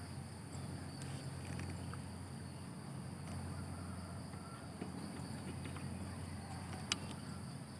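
Steady high-pitched insect chirring over a low steady hum of rural background, with one sharp click about seven seconds in.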